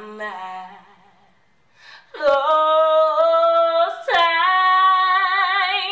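A woman's solo voice singing unaccompanied. A short phrase fades out at the start, then after a brief pause come two long held notes, the second wavering with vibrato toward its end.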